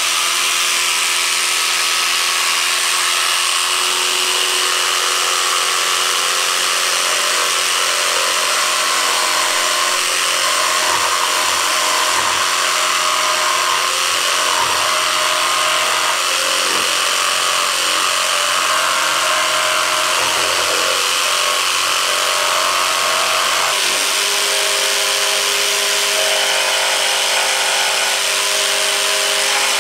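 Jigsaw fitted with a thin scrolling blade running steadily while cutting curves along a traced line in 3/16-inch luan plywood. Its pitch shifts slightly near the end.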